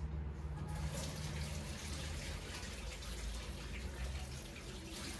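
Kitchen tap running into the sink, a steady splashing hiss that starts shortly after the beginning.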